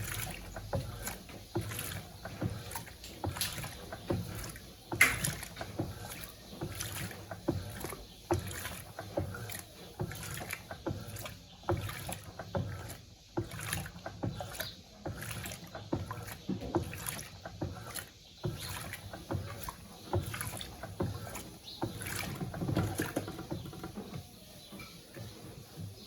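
Electrolux Turbo Compacta LTC07 top-loading washing machine agitating a load of towels, water sloshing and splashing in the tub in a steady run of irregular strokes.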